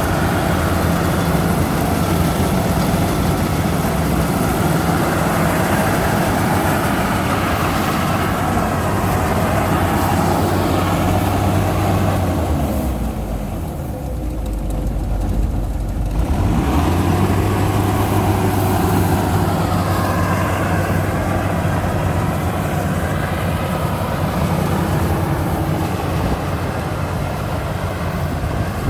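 Bimo combine harvester's engine running steadily under work. About halfway through the engine note drops away for a few seconds, then picks back up.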